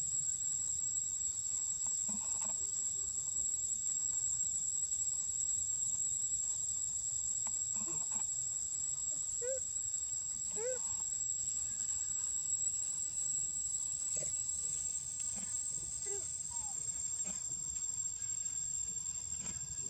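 Insects droning steadily in the surrounding trees, a constant high-pitched whine. A few faint short calls sound over it, two of them close together about halfway through.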